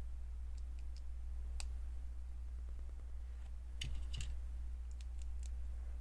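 Small plastic LEGO pieces clicking and tapping as they are handled and pressed together: scattered sharp clicks, with a short cluster about two-thirds of the way through. A steady low hum runs underneath.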